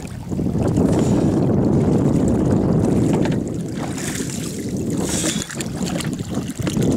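Wind rumbling on the microphone, louder over the first three seconds, with water splashing at the boat's side as a Chinook salmon is held in the water and released by hand, about four to five seconds in.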